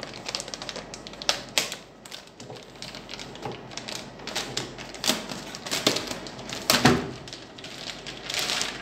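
Clear plastic bag around a boxed network device crinkling and crackling as it is handled and pulled at, in irregular clicks and rustles, with one louder knock about seven seconds in.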